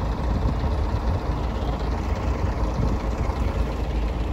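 City bus's diesel engine running at idle close by, a steady low rumble.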